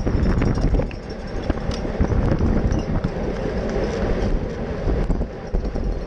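Wind buffeting the microphone of a GoPro mounted on a racing bicycle moving at about 20 mph, over a rough, uneven road rumble.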